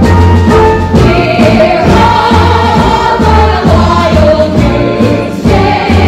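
Musical-theatre ensemble singing together as a chorus over instrumental accompaniment with a strong, steady bass line.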